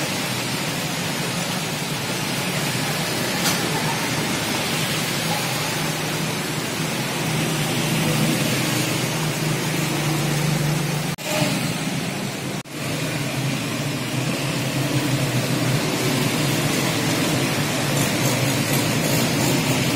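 Steady hiss of rain and water on a flooded street, with the low hum of motorbikes and motor rickshaws running as they drive through the water. The sound cuts out briefly twice about halfway through.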